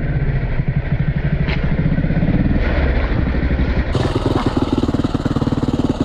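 Husqvarna 310 TE dirt bike's single-cylinder engine running while the bike is ridden, a fast even firing pulse; the sound changes and gets brighter about four seconds in.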